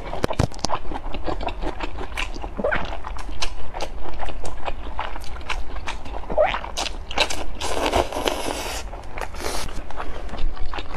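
Close-up slurping and chewing of thick stir-fried rice noodles: a steady run of short wet mouth clicks and smacks, with a longer slurp about eight seconds in.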